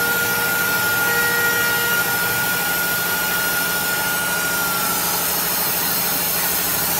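CNC router spindle running with a steady high whine while its bit routes a wood door panel, over a continuous hiss of cutting. The whine sags and fades about five seconds in.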